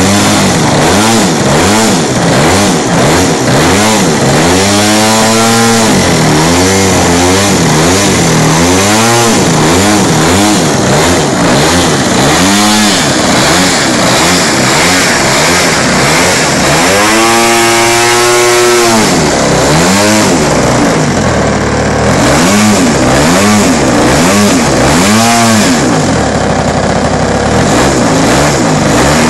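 RCGF 55cc two-stroke petrol engine fitted with a ProFlow, running a model plane's propeller and being revved up and down again and again from a fast idle. The longest, highest burst of throttle comes a little past halfway.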